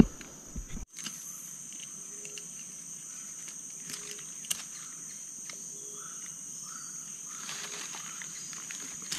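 Steady high-pitched drone of forest insects, with a few faint clicks of handling.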